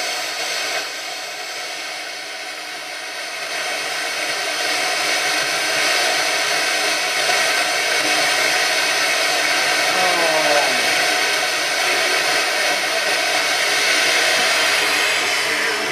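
Static hiss from a Sony CF-9000 boombox's radio while its tuning dial is turned between stations, with a faint falling whistle about ten seconds in.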